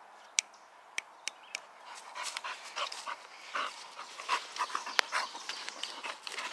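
Pit bull-type dog panting close up while nosing and pawing in dry leaf litter. There are a few sharp ticks at first, then from about two seconds in dense, irregular crackling rustles mixed with breaths.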